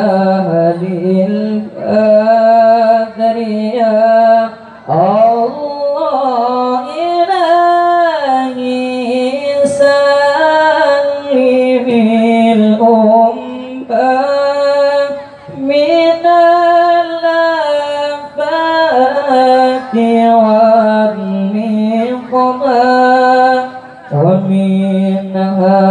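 A young man's voice reciting the Quran in the melodic tilawah style into a microphone. He holds long, ornamented notes that glide up and down, and breaks off briefly for breath about five seconds in, around fifteen seconds in, and near the end.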